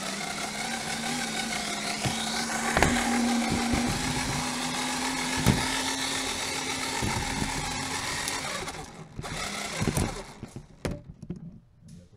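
The rappelling LEGO Technic vehicle's two LEGO XL motors whine steadily as they work the cotton belt. They stop about two-thirds of the way through, and a few sharp knocks follow.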